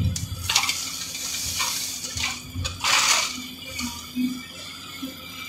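Crusher-run stone pouring from an excavator bucket into a steel dump-truck bed, a gravelly hiss and rattle in several surges, the biggest about three seconds in. A faint steady hum from the excavator's engine runs underneath.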